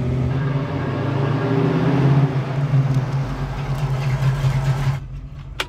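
1965 Mustang's cammed 289 V8 running through long-tube headers, an X-pipe and Black Widow Venom 250 mufflers, a steady low exhaust drone while driving. It cuts off suddenly about five seconds in, leaving a faint click near the end.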